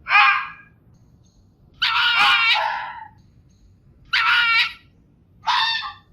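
Fox giving four sharp, harsh barking calls: a short one at the start, a longer drawn-out one about two seconds in, then two more short barks.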